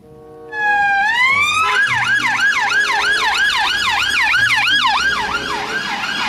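Electronic police siren: a single rising wail, then a fast repeating up-and-down yelp, about three sweeps a second.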